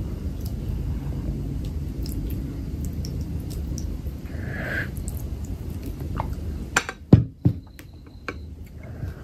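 Close-up eating sounds: chewing of a full mouthful, then a slurp of curry gravy drunk from a glass bowl about four and a half seconds in. A few sharp knocks around seven seconds as the glass bowl is set back down on the table.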